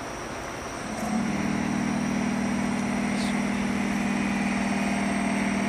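An E.656 electric locomotive standing with its auxiliary machinery humming; about a second in, an auxiliary motor starts up and runs with a steady hum. A brief high squeak sounds about three seconds in.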